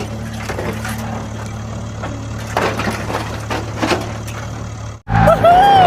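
A steady low mechanical hum, like a small motor running, with scattered crackling and crunching over it. About five seconds in it cuts out abruptly, and a louder sliding, gliding tone starts.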